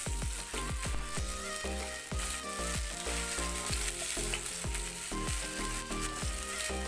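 Masala-coated Indian mackerel pieces shallow-frying in oil in a nonstick pan, sizzling steadily, with background music underneath.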